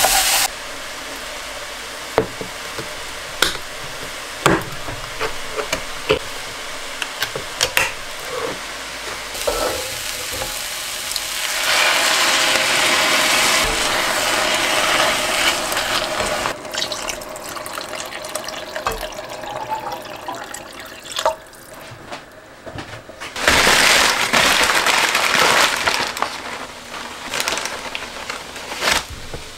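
Minced meat and vegetables in a pot being stirred with a wooden spatula, with scattered clicks and scrapes. About twelve seconds in comes a louder hiss of liquid for several seconds as tomato and a little water go into the pan. Near the end there is a loud crackling rustle of the paper bag as mushrooms are trimmed with a small knife.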